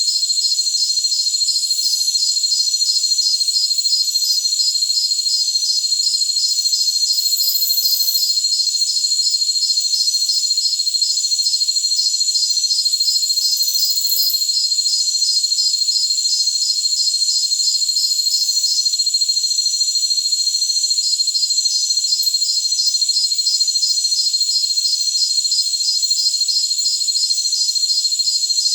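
A chorus of crickets calling: a continuous high, steady trill, with a second caller chirping in a steady pulse about three times a second that pauses briefly about two-thirds of the way through. The sound is all high-pitched, with nothing low beneath it.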